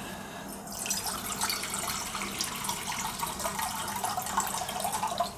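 Water pouring into a cooking pot, filling it for blanching spinach. It starts about a second in as a steady splashing and stops abruptly near the end.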